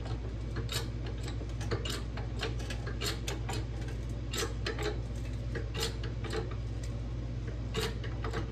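Hand-pumped hydraulic bottle jack under a steel press being jacked up, clicking sharply with the handle strokes, about two or three clicks a second, over a steady low hum.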